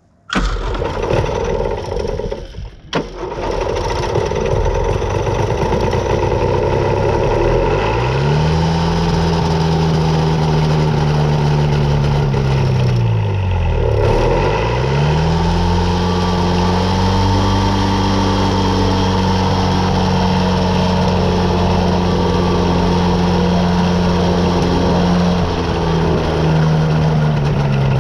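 Small aircraft engine starting about half a second in, running unevenly for a few seconds before settling into a steady run. Its pitch sags and comes back up in the middle.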